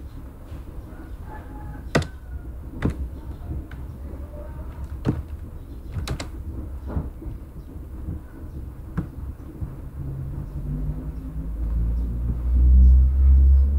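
Scattered computer keyboard and mouse clicks, a few seconds apart, over a low background hum. A low rumble builds up over the last few seconds and becomes the loudest sound.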